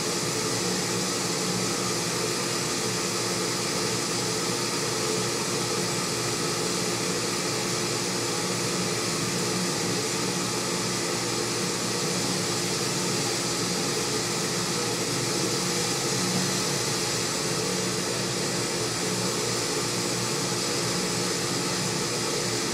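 Steady fan-like whir with a low hum from a 3 kW induction heating system running, level and unchanging. It cuts off suddenly at the very end.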